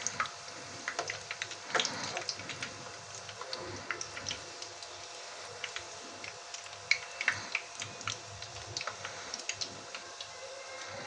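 Chicken samosas and spring rolls deep-frying in hot oil: a steady sizzle with irregular sharp crackles and pops.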